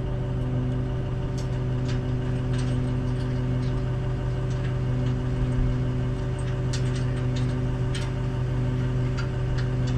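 An engine idling steadily, with a few light clicks and taps scattered over it.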